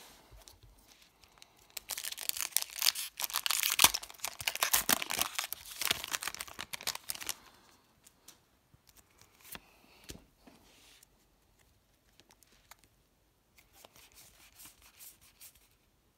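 A Pokémon card booster pack's foil wrapper being torn open and crinkled, from about two seconds in for some five seconds. Afterwards only faint rustles and light taps of the cards being handled.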